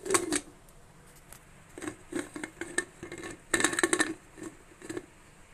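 Ganga aluminium pressure cooker lid being fitted and closed onto the pot: a run of metal clinks, knocks and scrapes, busiest about three and a half to four seconds in.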